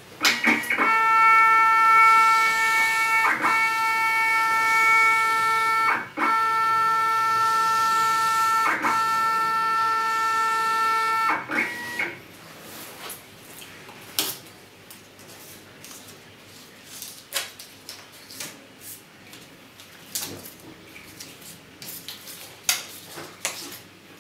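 Stima CMP thermal ticket printer whining steadily as it feeds and prints wristband tickets. The whine breaks briefly with a click about every three seconds and stops about twelve seconds in. After that come scattered light clicks and paper sounds as the printed wristbands are handled.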